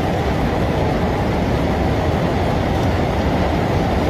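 Floodwater of the swollen Teesta river rushing past in a steady, loud, unbroken noise.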